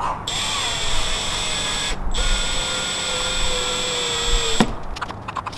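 Power drill driving wood screws through a piano hinge into half-inch plywood: a steady motor whine in two long runs with a short break between, the pitch sagging slightly as each screw goes in. It stops abruptly near the end, followed by a few light clicks.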